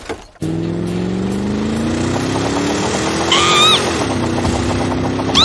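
Car engine sound effect, running and rising steadily in pitch as the car speeds up, then dropping in pitch about four seconds in and running on steadily. A short high-pitched call sounds about three and a half seconds in.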